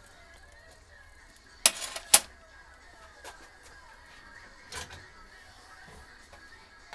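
Two sharp clicks about half a second apart, then a couple of fainter knocks, from a metal Weber DCOE carburettor being handled on a workbench.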